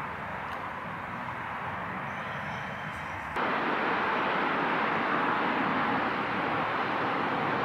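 Steady rushing outdoor background noise at night, with no clear pitch or rhythm. It turns abruptly louder and brighter about three and a half seconds in.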